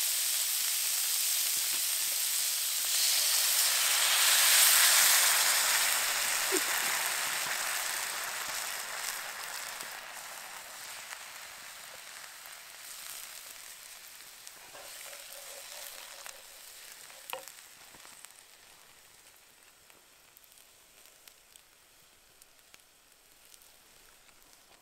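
Food sizzling in a hot cast iron pan. The sizzle swells to its loudest about five seconds in, then gradually dies down until it is faint near the end, with a few light clicks along the way.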